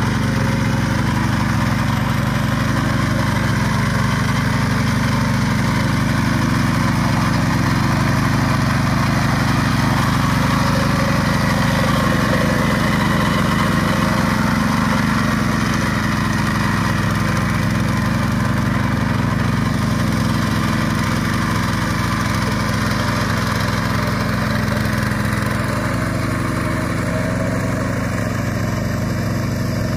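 Yanmar hand tractor's single-cylinder diesel engine running steadily as the machine tills wet paddy mud, growing slightly fainter near the end as it moves away.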